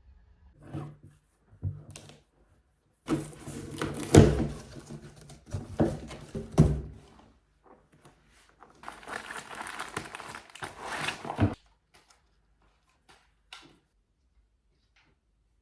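Objects being handled: several knocks and thunks mixed with stretches of rustling and crinkling, in two busy spells, then a few faint taps.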